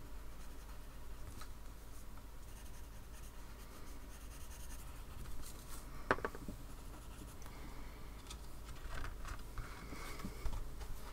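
Coloured pencils scratching lightly back and forth on card while shading. A single sharp tap about six seconds in.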